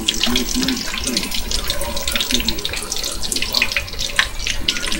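Hot oil sizzling with a dense, irregular crackle of small pops as cornmeal-battered fish deep-fries.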